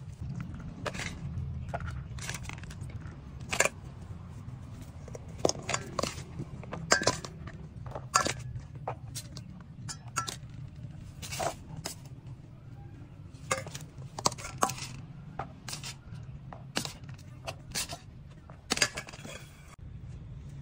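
A metal spoon clinking and scraping against plastic feeding bowls as wet cat food is dished out, in irregular sharp clicks, over a steady low hum.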